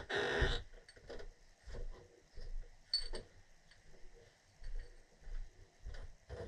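Light handling sounds of gas-pipe fittings and a pipe dope container: a short scraping rustle at the start, then scattered quiet clicks and taps.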